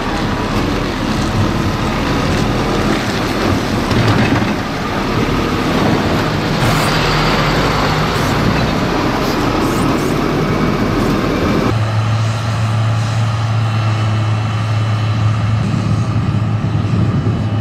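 Hidromek motor grader's diesel engine working hard, with a loud, rough scraping noise as it works the loose chippings. About two-thirds of the way through, the sound cuts abruptly to a steadier low engine drone as the grader runs on along the road.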